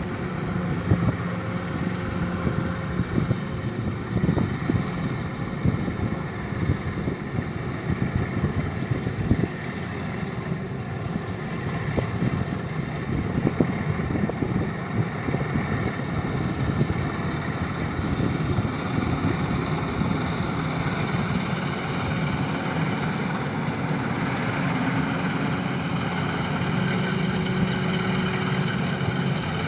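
An engine running steadily with a low hum and a stack of pitched tones, with a good deal of knocking and clatter over the first half that settles into a steadier drone later on.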